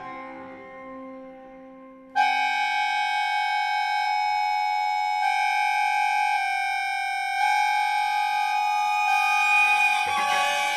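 Accordion and cello playing contemporary chamber music. A chord dies away, then about two seconds in the accordion cuts in with a sudden loud, high, sustained chord whose upper notes shift twice as it is held, and a lower, rougher attack comes in near the end.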